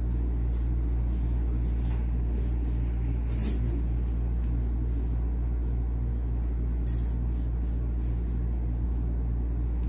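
A steady low hum of background noise, with a few faint soft rustles and ticks of cotton twine and a crochet hook being worked.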